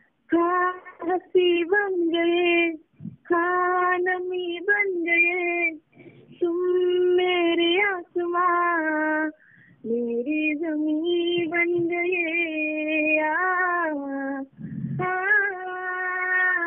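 A woman singing a song over a phone's loudspeaker, in four or five long, held phrases with short breaks between them. The sound is thin and phone-like, with no highs.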